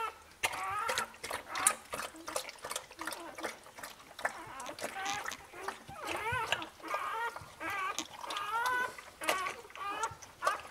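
Newborn husky puppy squealing in many short, high calls that rise and fall in pitch, while the mother dog licks it with wet, clicking slurps.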